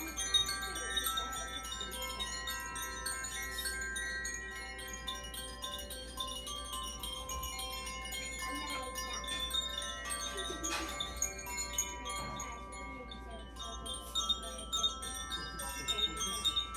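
Makino-style Advance Chime healing chimes ringing continuously: many overlapping tones hang on while a constant quick tinkling of strikes plays over them.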